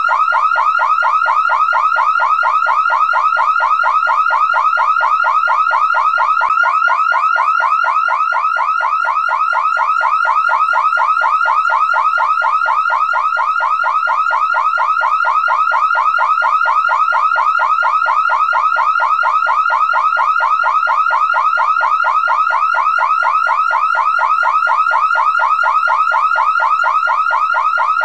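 Car alarm siren going off continuously and loudly: an unbroken run of short, fast rising chirps, several a second, repeating evenly without a break.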